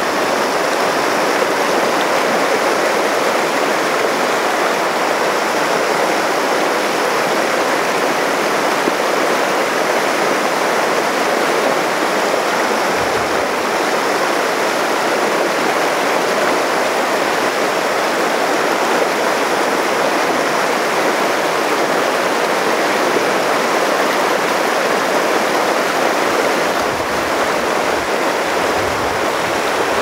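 Fast, shallow river water rushing and splashing over boulders in a riffle: a steady, even rush of white water.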